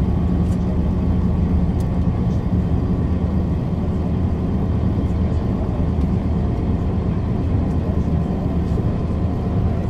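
Diesel engine of a 1966 MAN railbus idling steadily as the railcar stands still.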